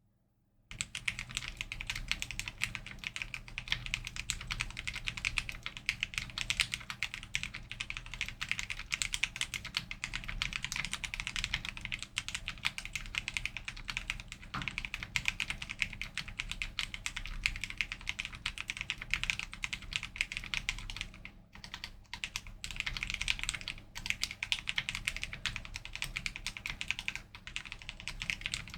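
Fast typing on a keyboard: a dense, continuous run of key clicks that starts just under a second in and breaks off briefly about three-quarters of the way through.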